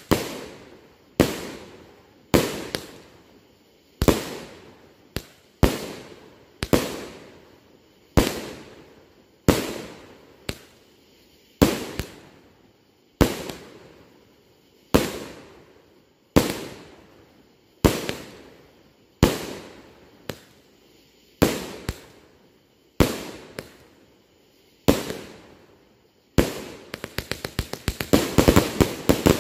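A 500-gram consumer firework cake firing shot after shot: about twenty sharp bangs, one every second or so, each trailing off in an echo. Near the end a rapid run of many pops closes the cake's last shots.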